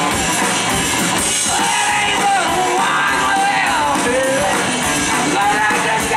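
Live rock band playing electric guitars, bass and drums, with a lead melody line bending up and down in pitch.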